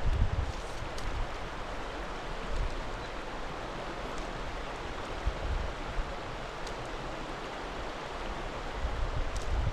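Creek water running in a steady rush, with a few brief low rumbles.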